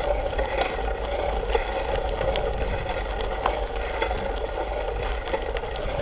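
Mountain bike rolling over a gravel road: steady crunch of tyres on loose gravel with scattered small clicks and rattles, over a low rumble of wind on the microphone.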